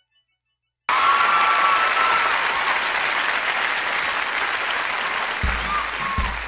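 Large theatre audience applauding, cutting in suddenly about a second in. Low musical notes from the band come in near the end.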